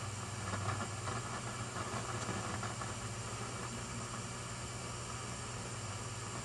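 Loudspeaker of a 1941 Rauland tube PA amplifier putting out a steady low hum under an irregular crackling hiss, heaviest in the first couple of seconds. The noise is traced to the interstage transformer that drives the output tubes, which the owner suspects may be arcing inside.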